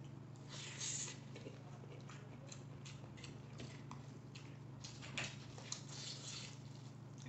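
Close-up mouth sounds of a person eating instant noodles by hand: a slurp about a second in, then wet chewing smacks and small clicks scattered through, over a steady low hum.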